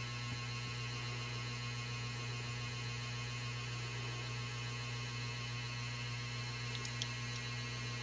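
Steady low electrical hum with a faint hiss, unchanging throughout. A couple of faint ticks come near the end.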